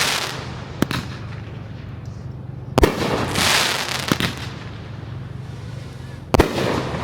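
Aerial fireworks going off: a sharp bang a little under a second in, a loud bang near three seconds followed by about a second and a half of hissing crackle, a smaller pop soon after, and another loud bang a little after six seconds. A steady low hum lies underneath.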